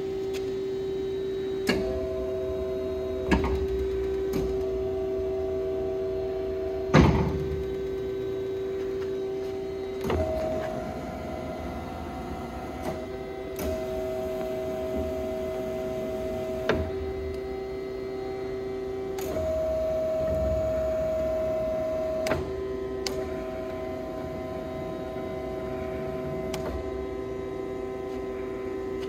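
HEM VT100HLM-60 vertical bandsaw running, with a steady electric hum. A second, higher tone switches on and off every few seconds. Scattered sharp metallic knocks come through, the loudest about seven seconds in.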